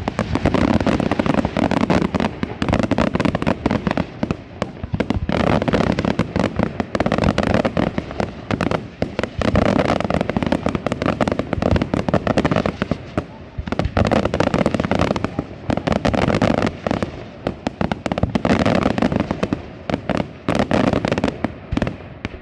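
Aerial fireworks display: a dense, continuous barrage of rapid bangs and crackling shells, swelling in waves every couple of seconds.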